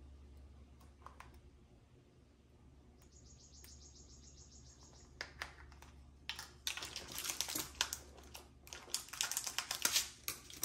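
A label peeled off a sticker sheet with a short rasp, then small clicks and crinkles of a little clear plastic storage container and plastic bead bags being handled.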